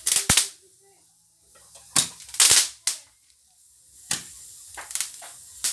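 Fireworks going off: a string of sharp bangs and pops at irregular intervals, a pair at the start, a cluster around two to three seconds in, and more toward the end.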